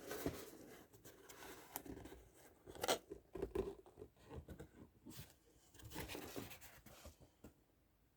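A box being opened and its contents and packaging handled: irregular rustling, scraping and light taps, the sharpest about three seconds in.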